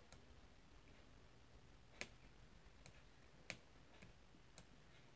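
Five faint, sharp clicks at uneven intervals, the loudest about two and three and a half seconds in: small tactile push-button switches on an electronic scale's keypad board being pressed one at a time while they are tested for faults.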